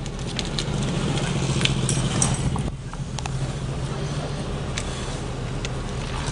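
Street noise with a steady low mechanical hum and scattered sharp clicks and knocks; the sound changes abruptly about two and a half seconds in.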